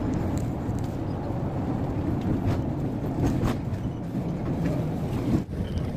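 Cabin noise of a moving electric bus: a steady road and tyre rumble with no engine note, and a few faint clicks.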